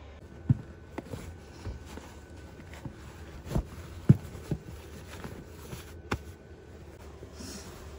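Hiking shoes being pulled on and set down on a wooden floor: a run of separate dull knocks and thumps, the loudest about half a second in and about four seconds in.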